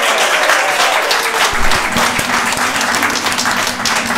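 Audience applauding, a dense patter of many hands clapping, with a low thud about one and a half seconds in.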